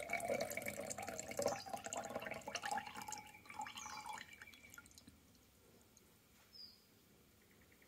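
Water with suspended azurite pigment poured from one glass jar into another, splashing into the liquid already there, then thinning to a trickle and drips and stopping about halfway through.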